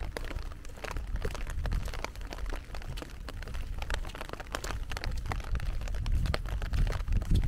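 Rain falling, heard as a dense patter of small drop taps over a steady low rumble.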